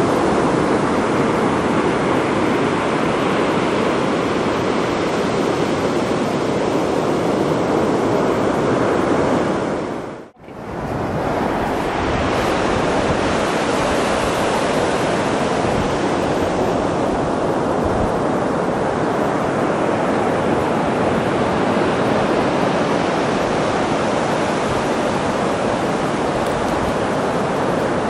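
Atlantic surf breaking and washing up the beach, a steady rush of waves. The sound drops out briefly about ten seconds in, then the surf resumes.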